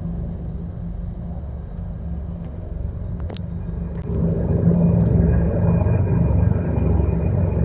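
Low-flying military helicopters overhead: a steady, pulsing rotor rumble that grows clearly louder about four seconds in.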